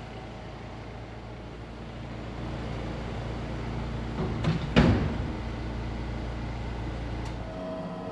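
Steady low hum of a Polestar 1 on a roller test rig, growing slowly louder, with a sudden whoosh and thump about four and a half seconds in.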